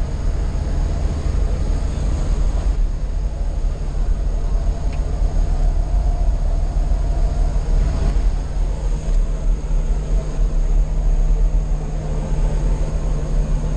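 Jump plane's engines running, heard from inside the cabin as a loud, steady low hum.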